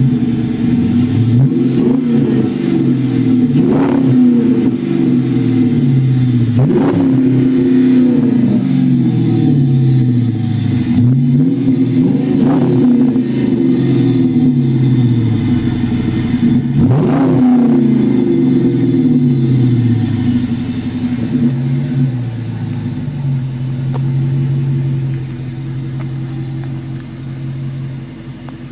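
2008 Dodge Charger R/T's 5.7 L Hemi V8 revved through a Borla Aggressive Tone exhaust with single-inlet single-outlet mufflers: several throttle blips, each rising sharply in pitch and gliding back down, then settling to a steady idle in the last several seconds.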